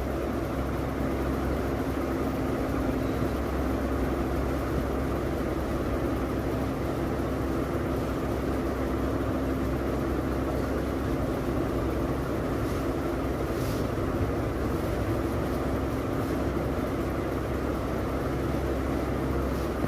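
Steady low mechanical hum with a few held low tones, even in level.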